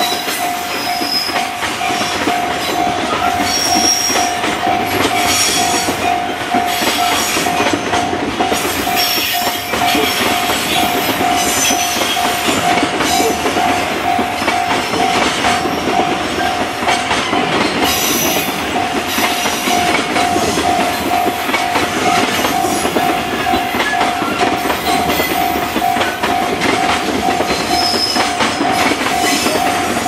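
Freight train's container wagons rolling past, wheels clattering over the rail joints with brief high squeals now and then. Over it a level-crossing alarm bell rings steadily in an even, pulsing beat.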